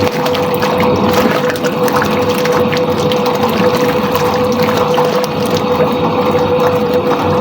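Soviet washing machine running a wash: a steady motor hum over water churning and sloshing in the tub.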